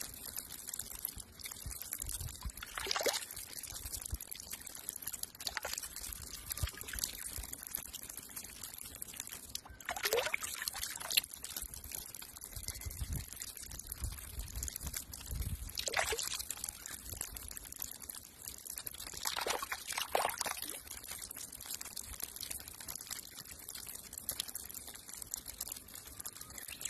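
Water pouring steadily out of the open end of a pipe and splashing onto rocks, with a few brief whooshes that fall in pitch.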